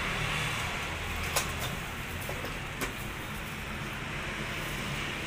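Steady low rumble of background traffic. Over it come two short sharp clicks about a second and a half apart, as a plastic drink cup is handled and set into the tray of a cup-sealing machine.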